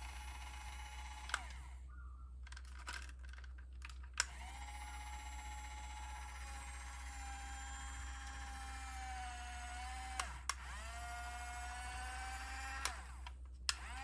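Small electric gear motor of a transforming RC toy tank whining as it swings the wing-like track panels open and shut. It stops about a second in, starts again about four seconds in, sags in pitch and picks up again near ten seconds, and stops near the end, with sharp clicks at the starts and stops.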